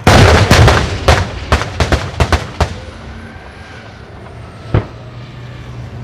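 Live-fire gunfire and shell explosions: a sudden dense volley of heavy blasts in quick succession for about two and a half seconds, then one more single blast near five seconds in.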